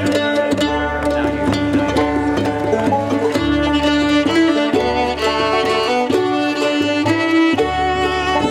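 Bluegrass band playing an instrumental number, the fiddle taking the lead over banjo, mandolin, guitar and upright bass.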